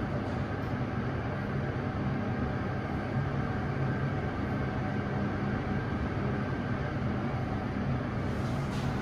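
KONE S MiniSpace traction lift car travelling upward: a steady low hum and rumble of the ride, with no breaks or changes.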